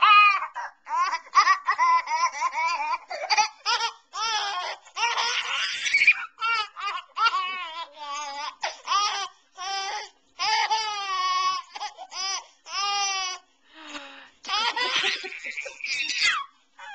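A baby laughing: high-pitched giggles and squeals, one burst after another with short breaths between.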